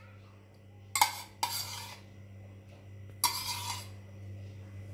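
Steel spoon scraping thick yogurt out of a steel bowl, in three short scrapes and clinks: two about a second in and one just past three seconds. A steady low hum runs underneath.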